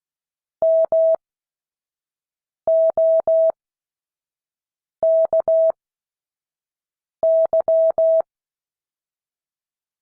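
Morse code sent as a single steady beeping tone, short dits and long dahs grouped into four characters with long pauses between them: slow practice sending for students to copy.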